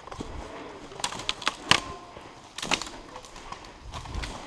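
Footsteps crunching through dry leaf litter and snapping dead twigs on a woodland slope: irregular crackles, sharpest about a second in and again near the middle.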